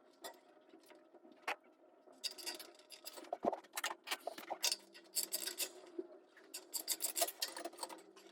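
Irregular scraping and clicking of small parts being handled, sparse at first and busier from about two seconds in.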